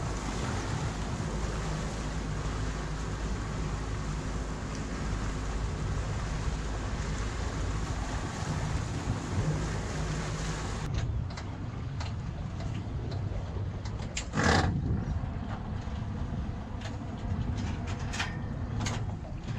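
Boat engine running underway with a steady rush of wind and water. About eleven seconds in, the rush drops away, leaving the engine idling low. A short loud knock follows a few seconds later, then a few light clicks.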